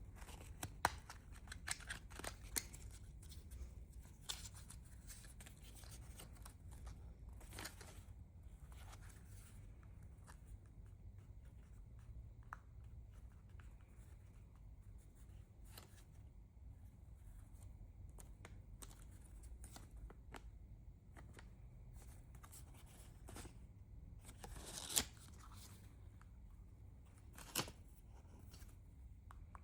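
Unboxing handling noises from a small alarm clock and its packaging: faint rustling and scraping, with scattered sharp clicks and taps, two of the loudest near the end.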